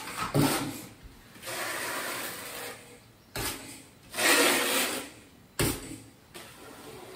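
A trowel scraped over Schluter Kerdi membrane on a wall, pressing it into the thinset: a few long scraping strokes, the loudest about four seconds in, with short knocks between them.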